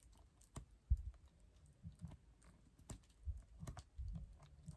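Sheets of a scrapbook paper pad being leafed through and bent by hand: faint, irregular crisp clicks and rustles of paper, with a few low soft bumps of handling.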